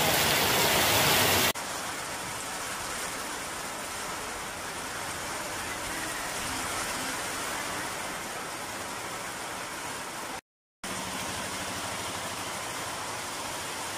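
Heavy rain falling, loud at first, then after a sudden cut a quieter, steady hiss of rain with traffic moving on a wet road. The sound drops out completely for a moment a little past the middle.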